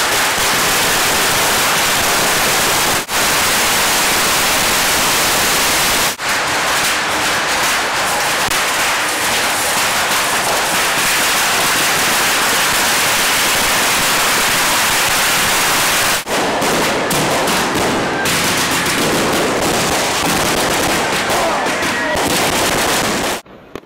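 Beehive firework barrage: massed bottle rockets fired from a beehive rack in a dense, continuous crackle of rapid bangs and fizzing. The barrage dips briefly about three, six and sixteen seconds in, then drops away sharply near the end.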